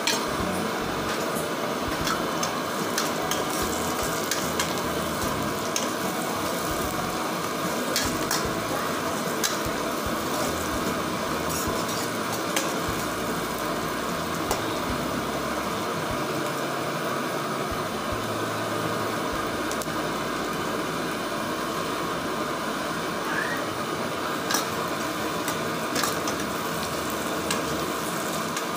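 Sliced onions and green chillies sizzling in hot oil in a pan, stirred with a steel ladle that clicks and scrapes against the pan now and then.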